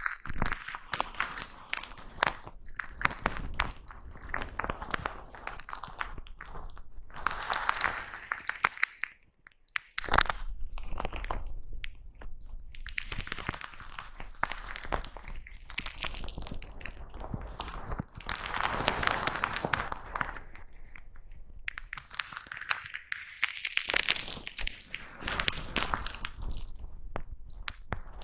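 Foam brush rubbed and brushed directly against a microphone, making close crackly, crunching scratches in swells of a few seconds each, with a brief pause about nine seconds in.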